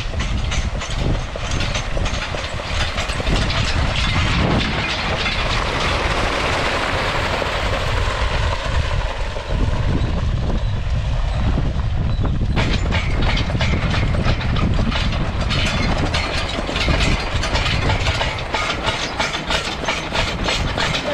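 Steel excavator track dragged over the ground by a team of draft horses: a continuous clanking, scraping rattle with a rapid, regular clatter running through it.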